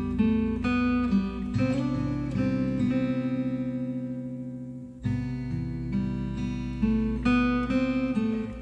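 Background music led by acoustic guitar, strummed and plucked chords; the sound fades about four seconds in and a new phrase starts about five seconds in.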